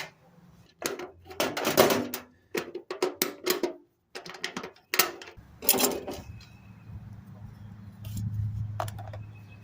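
Metal toolbox handle hardware clicking and clinking as the handles are worked off the box, with irregular short knocks. A steady low hum starts a little over halfway through.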